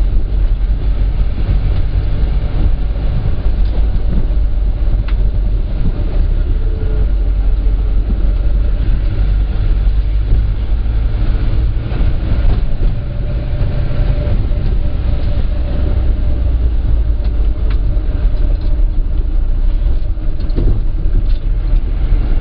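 Minibus engine and road noise heard from inside the cabin while driving, a steady low rumble with occasional knocks.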